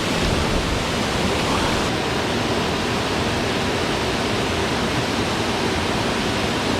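Waterfall's loud, steady rush of falling water.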